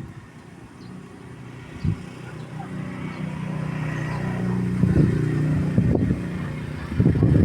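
A motor vehicle's engine, humming and growing steadily louder over several seconds as it approaches.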